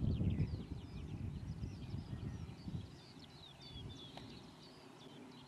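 Small songbirds chirping and singing in short, quick phrases, with a low rumble that fades out over the first three seconds.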